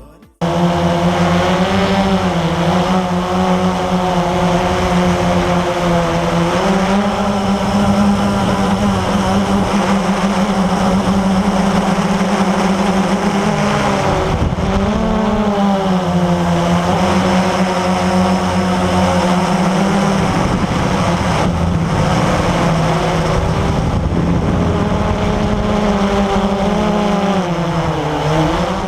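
Quadcopter's electric motors and propellers humming steadily in flight, the pitch shifting slightly up and down a few times as the throttle changes.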